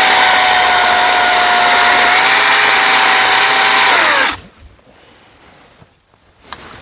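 Battery-powered chainsaw with a 16-inch bar and chain running at full speed, its motor and chain giving a steady high whine, then released, winding down and stopping about four seconds in.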